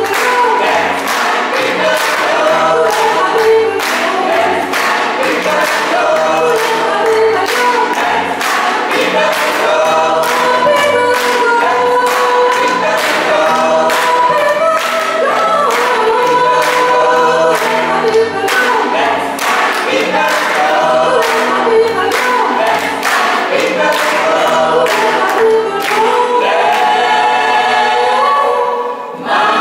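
Gospel choir singing in harmony, with steady rhythmic hand clapping on the beat. Near the end the clapping stops and the choir holds a sustained chord.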